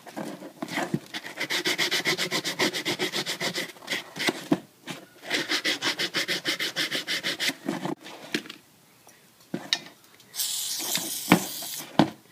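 Abrasive pad scrubbing the corroded terminals of an outboard ignition coil, cleaning them for a good electrical contact: rapid back-and-forth strokes in two runs with a short break between. After a pause, a steady hiss starts near the end.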